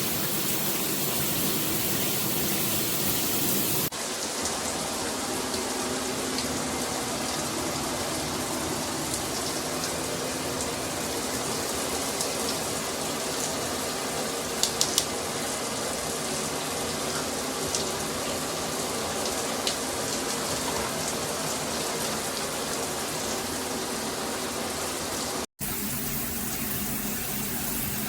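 Shower head spraying water: a steady hiss of falling water that changes abruptly about four seconds in and cuts out for a moment near the end.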